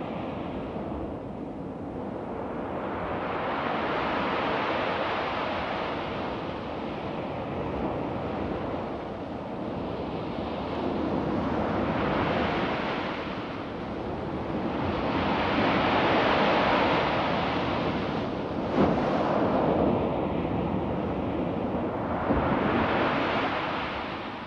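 Storm sound effect of rushing wind and surging water, swelling and dying away about every four seconds, with a single sharp crack about three-quarters of the way through.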